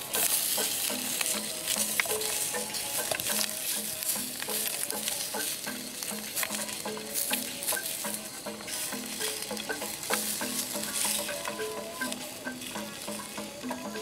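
Wiener sausages sizzling in a hot metal frying pan, a steady spitting hiss with frequent sharp pops, while chopsticks turn them in the pan.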